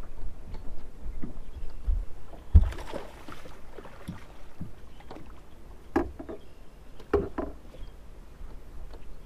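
Wind rumbling and water slapping against a boat's hull while a hooked bass is being landed. There is a thump and a short splash about two and a half seconds in, and two sharp knocks around six and seven seconds in.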